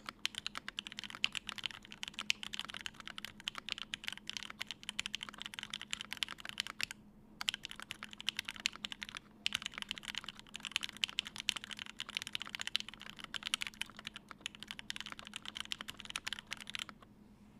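Typing on a GHS.RAR mechanical keyboard with lubed and filmed Gateron Ink switches in an aluminium plate and GMK doubleshot keycaps: a quick, continuous run of keystrokes. The typing pauses briefly twice and stops about a second before the end.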